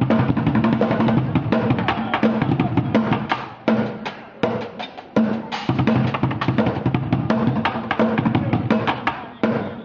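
Bucket drumming: upturned plastic buckets and pots struck in a fast, dense rhythm, thinning to a few single hits near the end.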